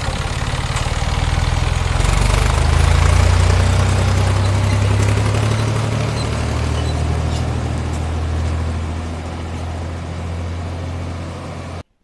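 1981 Ferguson 35 tractor engine running close by, growing louder over the first three seconds and then slowly fading. It cuts off abruptly just before the end.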